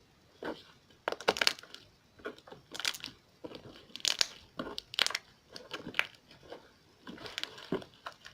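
Slime being squeezed and poked by hand, giving irregular runs of crackling pops as trapped air bubbles in it break.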